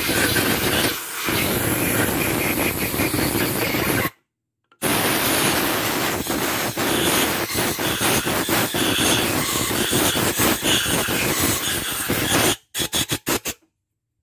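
Hand scraper rasping back and forth over the flat gasket face of a Mitsubishi L200 cylinder head, cleaning off old head-gasket residue. The sound cuts out abruptly about four seconds in, resumes, then breaks into a few short strokes before stopping near the end.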